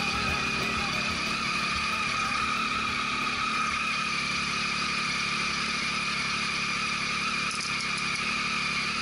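Motorcycle engine idling steadily, heard from the bike's own camera, with a constant high whine over it.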